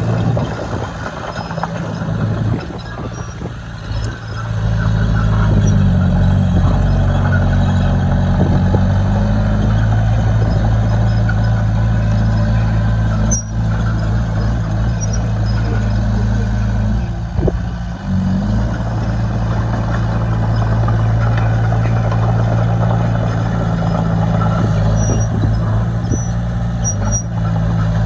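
Heavy diesel engine of a crawler bulldozer working, a steady low drone whose engine speed shifts up and down a few times as the load changes.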